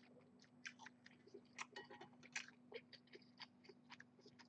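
Faint close-up chewing of a mouthful of Thai noodle soup with rice: irregular soft wet mouth clicks and smacks, a few each second.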